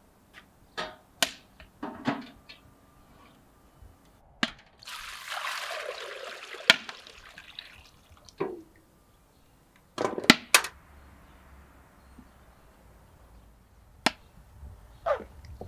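A few metal clanks, then liquid poured from a galvanised metal bucket for about three seconds, starting about five seconds in. Several sharp knocks follow later.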